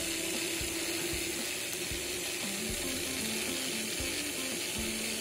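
Small 9-volt DC motor and 12-volt DC fan running steadily on the rectified supply: an even whir with airy hiss and light, irregular ticking.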